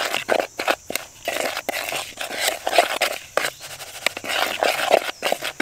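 Metal spoon stirring and scraping a gritty dry powder of ground eggshells, banana peel, cinnamon and coffee grounds in a plastic bowl, in quick, irregular strokes.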